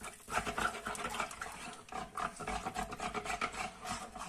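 Metal spoon stirring a milk, cornstarch and dulce de leche mixture in a saucepan, scraping and clicking against the pan in a quick, irregular run of strokes.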